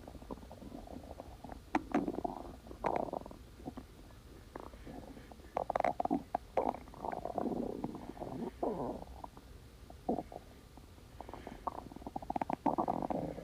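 Human stomach growling: an irregular run of gurgles, pops and squeaky rumbles, with a falling squeal about nine seconds in.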